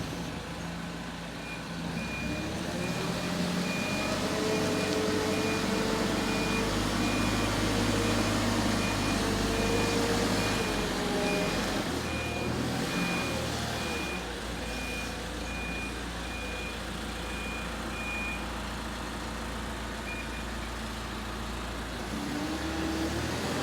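A vehicle's reversing alarm beeping about once a second, stopping about three-quarters of the way through, over a running engine whose pitch rises and falls.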